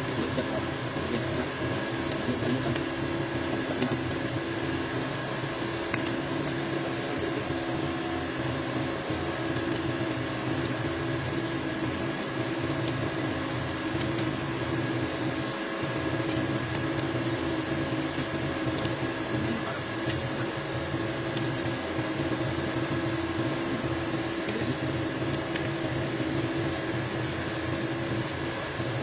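A steady motor hum with a few faint clicks scattered through it.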